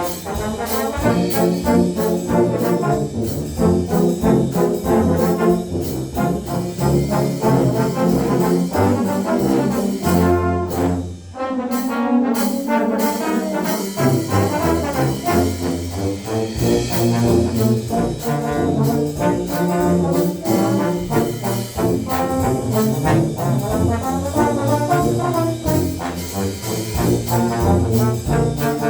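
Low brass ensemble of trombones and other low brass playing a jazz march, with a short break about eleven seconds in.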